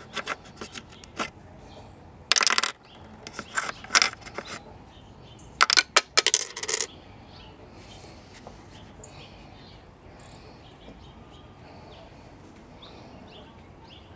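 Coins clinking in a car centre console's coin holder as they are handled in the slots: light clicks at first, then three loud bursts of ringing clinks between about two and seven seconds in.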